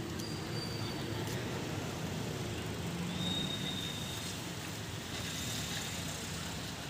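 Street ambience: a steady rumble of road traffic, with two brief, thin high tones, one near the start and one about three seconds in.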